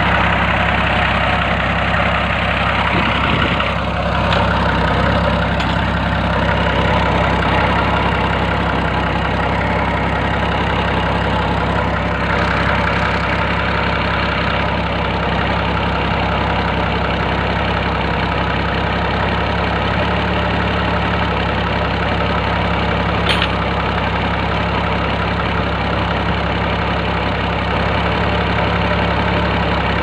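Engine of a homemade backhoe idling steadily, heard up close in the engine bay. A single sharp click comes about two-thirds of the way through.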